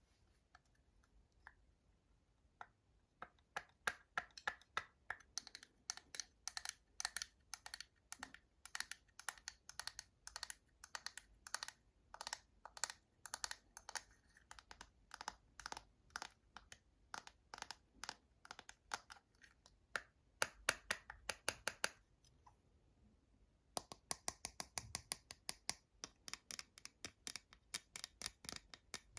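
Fingernails tapping on travel-size cosmetic containers: sharp little clicks, several a second. The tapping starts about three seconds in, stops briefly past the middle, then picks up again faster.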